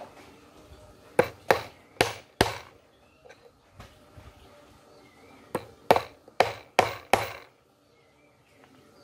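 Hammer driving nails into small wooden blocks: two runs of sharp blows, four and then five, with a short pause between.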